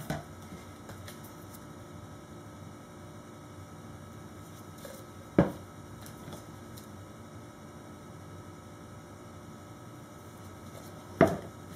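Steady low electrical hum, broken three times by a sharp knock: plastic measuring pitchers of soap batter being set down on a countertop, once at the start, once about halfway through and once near the end.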